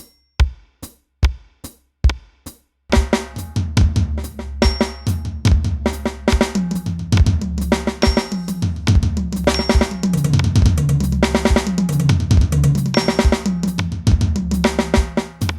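Electronic drum kit module's metronome clicking steadily, about two and a half clicks a second, with an accented high beep on the first beat. From about three seconds in a drum beat with kick, snare and cymbals is played through the kit along with the click.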